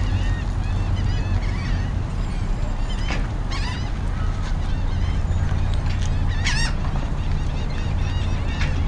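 Many birds calling, a flock's short arching squawks and cries repeating over and over, loudest in a few clusters a few seconds in. A steady low engine hum runs underneath.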